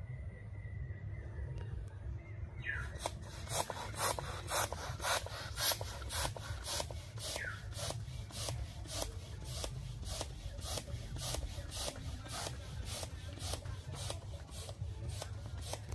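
Hand balloon pump worked in quick even strokes, each a short rasping rush of air, about three a second, starting a couple of seconds in, as it inflates a long latex modeling balloon.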